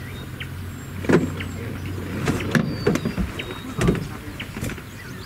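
Elephants splashing and sloshing in a waterhole, with irregular splashes about a second apart over a low steady engine hum that runs through the first half. Short thin bird chirps sound above.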